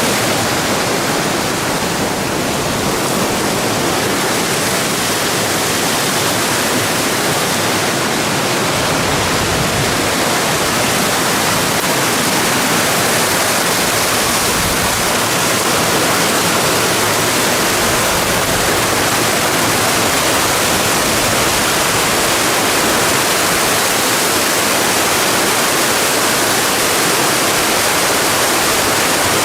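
Rushing water of a mountain stream and its falls: a loud, steady, unbroken rush.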